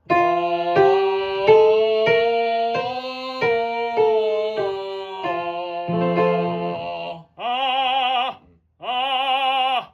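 Piano playing a stepwise vocal exercise while a singer vocalises legato over it, followed by two held sung notes with wide vibrato near the end.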